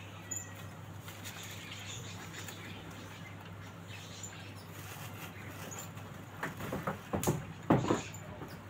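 Faint bird chirps over a steady low hum. From about six and a half seconds in comes a run of loud, sharp crackling rustles of dry leaves as gray langurs move about and handle the leaf litter.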